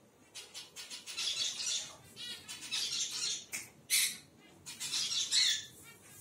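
Pet parrots squawking: a run of harsh, screechy calls coming in clusters, the loudest one about four seconds in.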